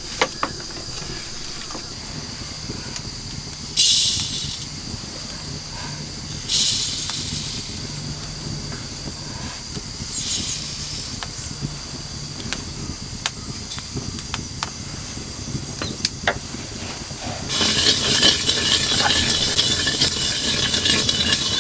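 Dry spice seeds, cumin among them, poured into a hot iron wok in three short rattling bursts, over a wood fire that crackles with scattered clicks. Near the end a ladle starts stirring the seeds around the wok, a continuous dry rattle and scrape as they roast.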